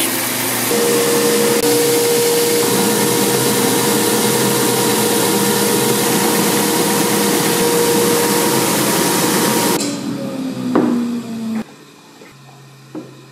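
Woodworking machines cutting and sanding a wooden gayageum body board: a band saw, then an edge belt sander running with a steady hum over loud grinding noise. About ten seconds in, the machine noise cuts off and a falling tone follows, then it goes much quieter with a single knock near the end.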